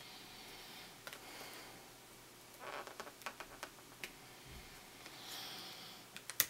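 Hands handling a laptop's screen assembly: faint rustling and a scatter of light plastic clicks in the middle, with one sharper click near the end.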